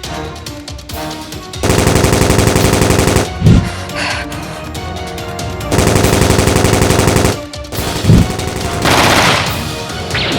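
Two bursts of rapid automatic gunfire, each about a second and a half long and followed by a low thump, over background music.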